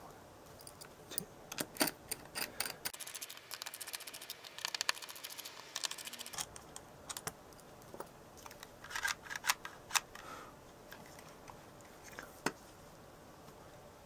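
Plastic clicks and taps from a Lego Technic Hub's battery cover and casing being handled and fitted, with a dense run of quick fine ticks a few seconds in and scattered sharp clicks after it.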